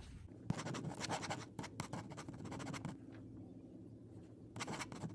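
Pen scratching on paper on a clipboard: a run of quick writing strokes, a pause, then a few more strokes near the end.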